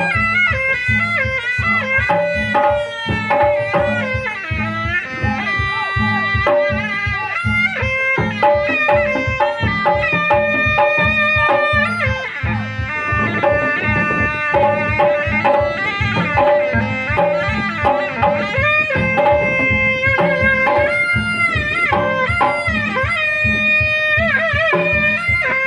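Kendang pencak music for pencak silat: a tarompet, a Sundanese reed shawm, plays a winding, ornamented melody over a steady, driving beat of kendang hand drums.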